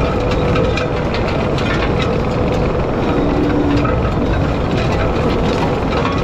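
Skid steer diesel engine running steadily under load while its hydraulic landscape power rake churns through dry soil. Frequent small clicks and rattles run through the steady rumble.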